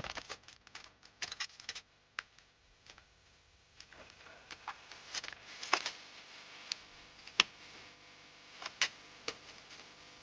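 Irregular clicks and light clinks of small metal parts and hand tools being handled while an electrical power supply is taken apart, with a few sharper knocks in the second half.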